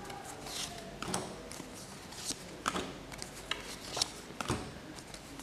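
Pokémon trading cards being slid one at a time from the front to the back of a small stack held in the hands: a series of soft swishes and light flicks, roughly one a second.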